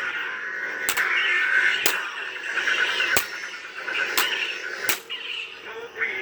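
Ultrasabers Manticore CE lightsaber replica's sound board playing a wavering electronic blade hum through its small speaker, broken by sharp clicks about once a second. The saber keeps cutting itself off, a fault the replaced diamond board has not cured.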